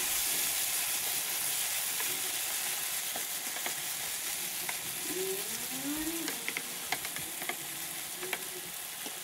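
An eggplant and minced pork stir-fry sizzling in a nonstick frying pan while a wooden spatula stirs in starch slurry, with a few light clicks of the spatula. The sizzle is steady and slowly gets quieter.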